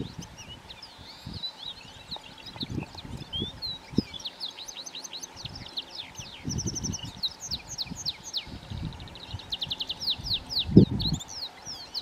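Wild canaries singing: a fast, unbroken jumble of high chirps and rapid trills. Low rumbling thumps come now and then, the loudest near the end.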